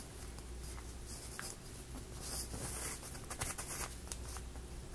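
Faint clicks and rubbing of laser-cut plywood parts of a Wooden City gear mechanism being handled and fitted together, a few sharper ticks past the middle, over a low steady hum.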